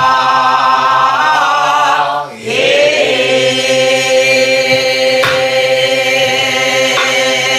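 Namdo folk song sung in long held, slightly wavering notes, with a short break about two seconds in. Sparse strokes on a soribuk barrel drum keep the slow beat under the voice.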